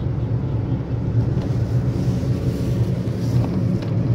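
Car driving on a road: steady low engine hum and tyre noise.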